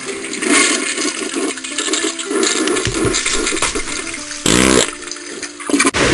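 A toilet flushing: a rushing swirl of water for about four seconds, then a short, loud pitched sound about four and a half seconds in.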